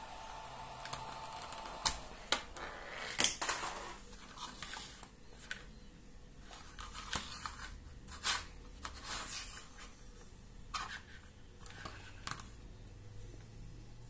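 Hand handling a 3D-printed plastic controller box on a cutting mat: scattered clicks and knocks, the loudest a few sharp ones about two to three seconds in, thinning out toward the end. A faint steady high tone fades out about two seconds in.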